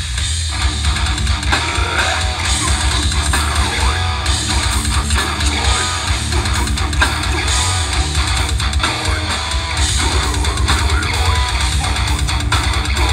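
Live goregrind band playing at full volume: distorted electric guitars and bass over drums, with a rapid, unbroken bass-drum pulse underneath.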